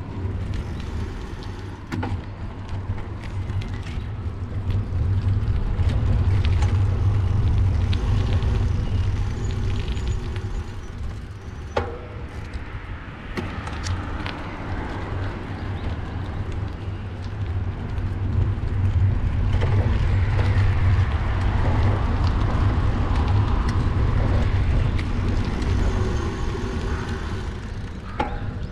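Wind buffeting a handlebar-mounted GoPro's microphone while riding a bicycle, with road and tyre noise underneath. It swells louder in two long stretches, and a couple of sharp clicks or rattles stand out.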